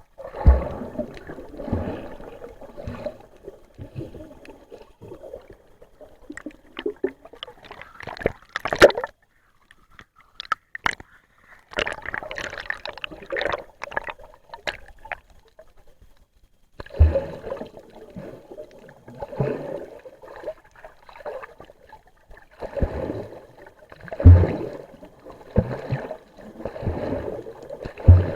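Water gurgling and sloshing around an underwater camera, coming in irregular surges about every one to two seconds with short dull knocks, broken twice by brief near-quiet gaps.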